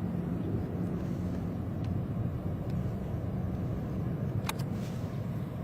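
Steady low rumble of an airliner's engines and cabin, with a brief click about four and a half seconds in.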